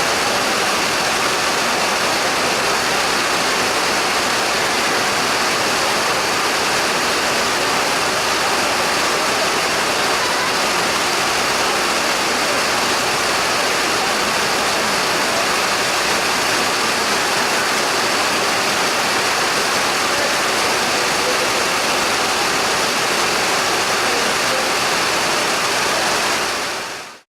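Heavy rain falling steadily in a constant dense hiss with no separate drops standing out; it fades out quickly right at the end.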